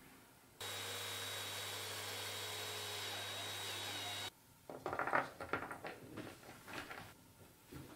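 Cordless drill with a step drill bit running steadily for nearly four seconds as it bores through the plastic wall of an electrical enclosure, stopping abruptly. Then a series of small clicks and rattles as a round metal panel connector is fitted into the new hole.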